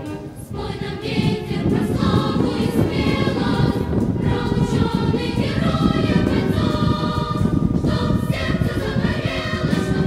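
Music: a choir singing with instrumental accompaniment.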